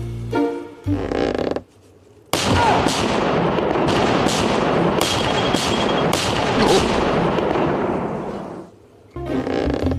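Background music, then about two seconds in a sudden loud pyrotechnic explosion on a film set. Several seconds of crackling rumble follow, with a few more sharp bangs, before it dies away and the music comes back near the end.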